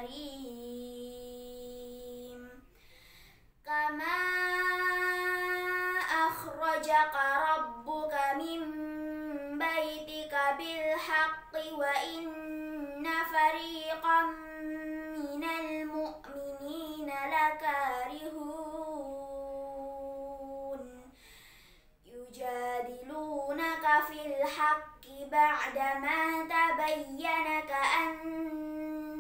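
A girl's unaccompanied voice chanting Quran recitation in tartil style: long held notes and winding melodic runs, with short pauses for breath about three seconds in and again about three quarters through.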